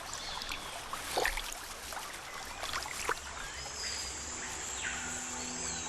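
Water splashing and sloshing in a river, with a few sharp splashes, while birds call with short chirps and a falling whistle. Music fades in near the end.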